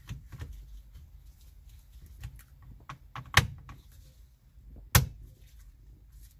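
A 2011 Hyundai Sonata's plastic clock spring being fitted onto the steering column: light clicking and rattling of plastic parts, then two sharp snaps, about halfway through and again a second and a half later, as it is pressed into its clips.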